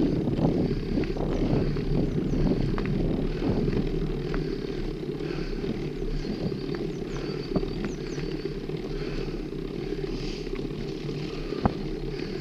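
Wind rumbling on the camera microphone and tyres rolling over a dirt trail as a mountain bike is ridden, with a couple of sharp knocks from the bike over bumps.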